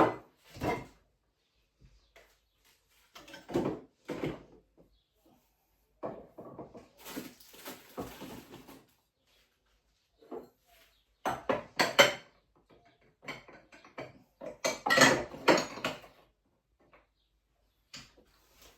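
Intermittent knocks and clatter from things being moved about in crowded kitchen cupboards, in short clusters with quiet gaps between them.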